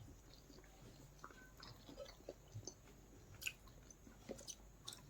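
Faint chewing and mouth sounds close to the microphone: soft smacks and small clicks at scattered moments.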